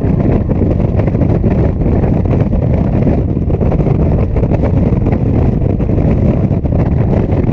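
Yamaha FJ-09's three-cylinder engine running steadily at highway cruising speed, mixed with a heavy, even rush of wind over the camera microphone. It neither revs up nor drops off.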